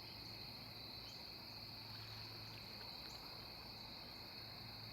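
Faint outdoor insect chorus: a steady, even high-pitched drone, over a low steady hum.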